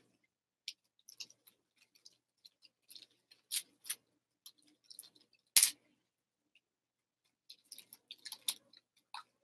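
Plastic candy wrapper crinkling in scattered small crackles as it is unwrapped by hand, with one sharp, louder snap about halfway through.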